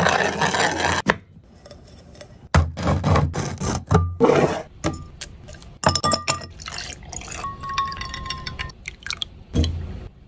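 Liquid pouring and glassware and utensils clinking, in a series of short, abruptly starting and stopping bursts.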